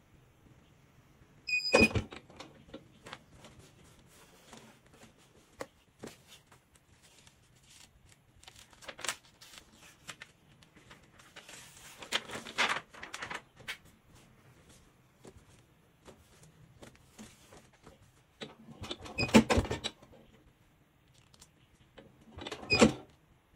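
A clamshell heat press being worked, with a loud clunk of the press about two seconds in and another as its handle is pulled down near the end. In between come scattered clicks and the rustle of the shirt and transfer sheets being handled, with a burst of clattering a few seconds before the end.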